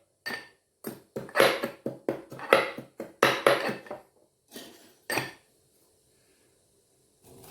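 Ginger being chopped with a knife: a run of sharp knocks, about three a second, that stops about five seconds in.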